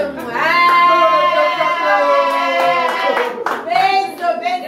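A high voice holds one long sung note for about three seconds, sliding slightly down in pitch, followed by a single sharp clap-like hit and then voices talking.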